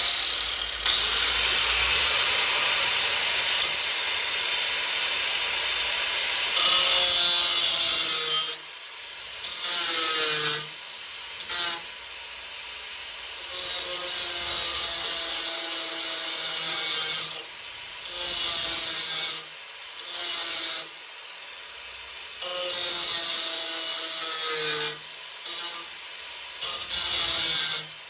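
A power tool cutting or abrading, with a pitched whine over a rasping noise. It runs for about eight seconds, then starts and stops in short bursts of one to three seconds.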